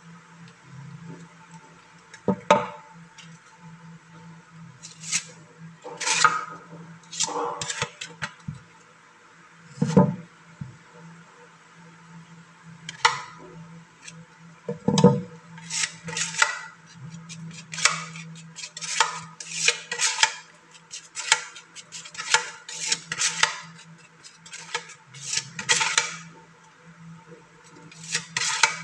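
Steel putty knives scraping and clinking against each other as grey wood putty is worked off one blade onto the other: a series of short metallic scrapes, scattered at first and then coming about every half second from midway on. A low hum comes and goes underneath.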